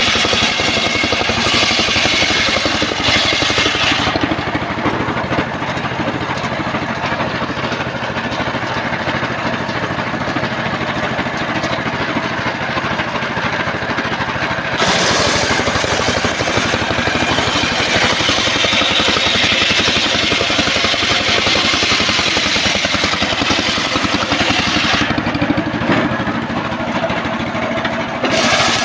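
Homemade engine-driven circular sawmill ripping an old trembesi (rain tree) log. The engine runs steadily throughout. A brighter, harsher cutting noise from the blade biting the wood is heard at the start, again from about halfway to near the end, and once more just at the close; in between, the blade spins without cutting.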